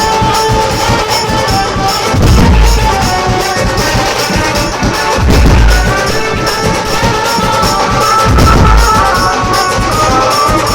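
Dhumal band music: a keyboard lead melody over drums, with a deep bass boom about every three seconds.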